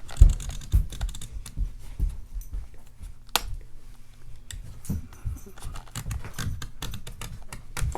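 Irregular metallic clicking and scraping as a tool cuts into the metal body of a padlock.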